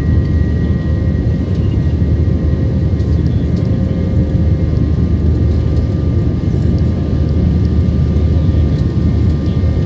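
Steady cabin roar of an Airbus A320 in its climb after takeoff, heard from inside the cabin by the wing: engine and airflow noise, heaviest in the low range, with a few faint steady tones above it.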